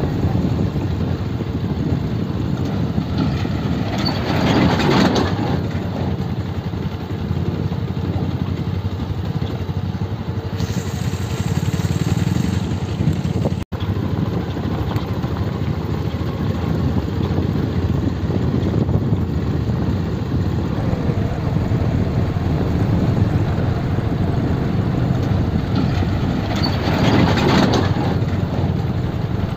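Motorcycle engines running at low speed on a rough dirt road, with a steady rumbling noise of riding. Two brief louder rushes come a few seconds in and near the end, and the sound cuts out for an instant about halfway through.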